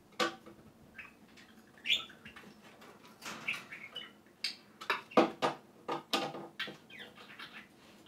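Pet budgerigars (parakeets) chirping and chattering in short, sharp calls, with a few quick clicks or knocks among them; the loudest comes about five seconds in.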